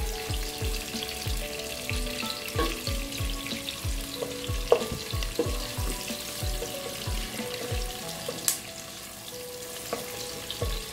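Sliced onions sizzling in hot oil while a wooden spatula stirs them around a non-stick pot, with a few sharp knocks of the spatula against the pot. They are being softened until translucent, not browned. Background music with a steady beat runs underneath.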